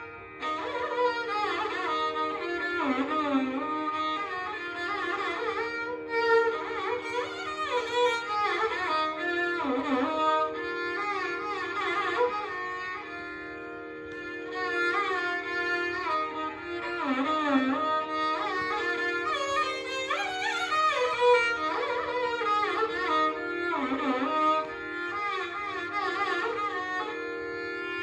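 Solo Carnatic violin playing in raga Bhairavi, the melody sliding and bending between notes in ornamented glides, over a steady drone. It eases to a softer passage about halfway through, then picks up again.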